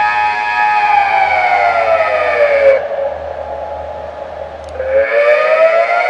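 Delta civil-defence siren sounding the Austrian 'Alarm' signal, the rising and falling wail that warns of danger. Its chord holds at full pitch, falls over about two seconds to a low, quieter tone, then climbs again about five seconds in.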